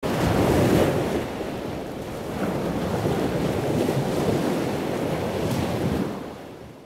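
Steady rushing noise of surf, fading out near the end.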